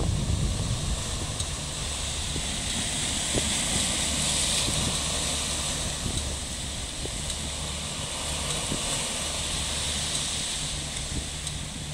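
Steady low engine drone from a boat on the water, becoming steadier about two seconds in, over a constant hiss of wind and sea.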